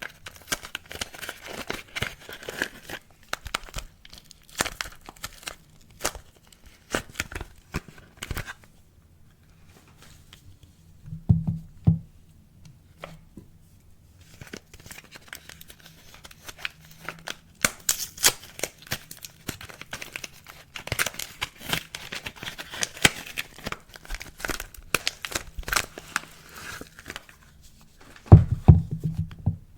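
Soap packaging being torn open and crinkled by hand: dense crackling and tearing of wrapping, with a pause partway through. A couple of dull knocks come about eleven seconds in and near the end.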